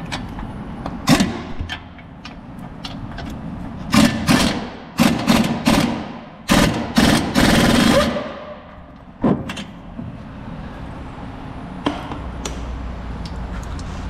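Impact wrench on the Nissan NV200's rear hub bolts, fired in several short, loud bursts. The last and longest runs about a second and a half and tails off as it stops.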